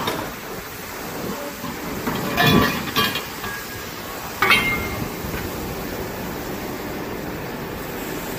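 Several metallic clanks and clinks as a bent metal tube is handled and set down, the two loudest about two and a half and four and a half seconds in, the later one ringing briefly. Steady workshop machine noise runs underneath.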